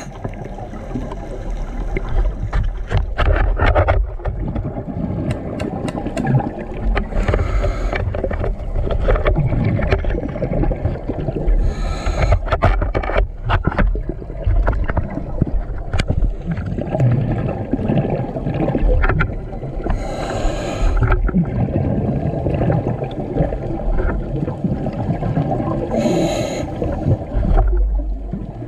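Scuba diver breathing underwater through a regulator: four bursts of exhaled bubbles, each about a second long, over a steady low rumble of water with scattered sharp clicks.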